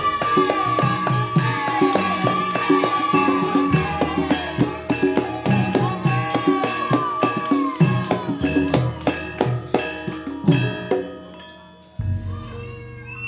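Jaranan gamelan accompaniment: fast hand-drum strokes under a held, wavering melody line. It dies away near the end, then a low ringing stroke sounds.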